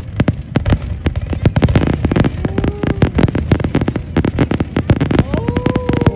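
Fireworks finale barrage: a dense, rapid run of bangs and crackling reports, several a second, with no let-up.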